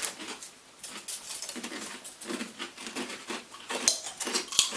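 Pork rinds being chewed, a dense irregular run of crisp crunches and crackles.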